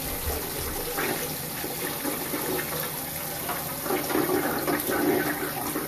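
Toilet flushing: a steady rush of water swirling through the bowl.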